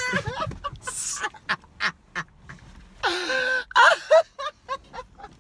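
Two men laughing hard in bursts, with a loud high-pitched cry of laughter about three seconds in.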